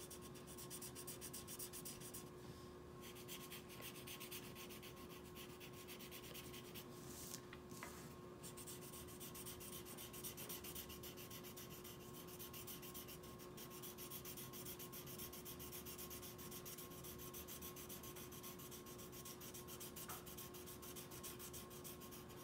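Felt-tip marker scribbling on paper in quick back-and-forth strokes, colouring in, faint, with short pauses about two and a half and seven seconds in.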